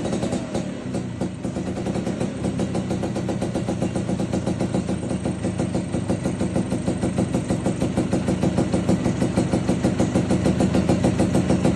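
Vespa Exclusive 2 scooter's single-cylinder two-stroke engine idling steadily after a rev, with an even pulsing exhaust beat that grows a little louder toward the end.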